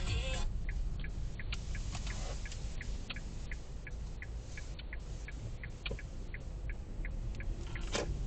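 Car turn-signal indicator clicking, about three ticks a second, over a steady low engine rumble, with one louder click near the end.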